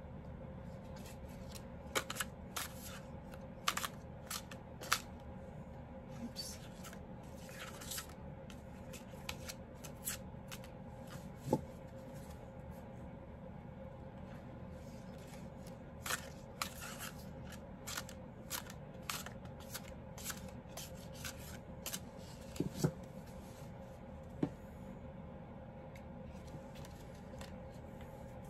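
A deck of cards being shuffled and handled by hand: irregular crisp snaps and flicks of card against card, with a couple of louder knocks, over a steady faint hum.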